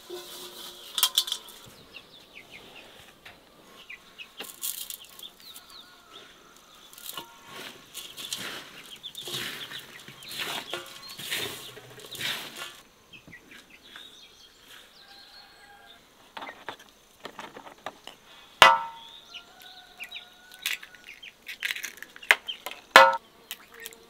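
Hands rubbing and tossing a crumbly fine bulgur mixture in a large steel basin, a dry rustling and scraping. Near the end come two sharp knocks a few seconds apart with a short metallic ring: eggs being cracked on the basin's rim.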